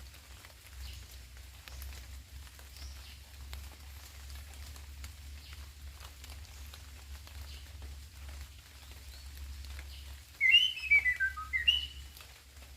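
Faint steady patter, then about ten seconds in a songbird whistles one loud phrase of clear notes stepping down in pitch and ending on a higher note.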